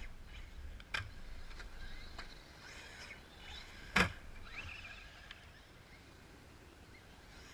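Electric Traxxas RC trucks jumping dirt mounds: faint motor whine that rises and falls, a small knock about a second in, and a sharp, louder impact about four seconds in as a truck lands hard in the grass.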